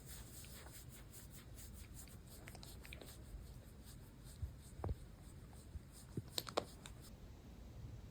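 Faint scratchy rustling, with a few soft clicks about five and six and a half seconds in.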